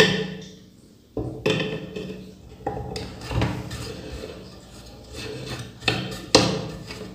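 Irregular clicks and knocks of a screwdriver working at the hub of a ceiling exhaust fan's plastic blower wheel, with light handling of the wheel and housing; the sharpest knock comes about six seconds in.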